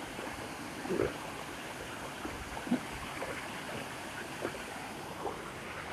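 Water rushing steadily down a rock chute in a small waterfall, an even rushing noise, with a few faint short sounds over it.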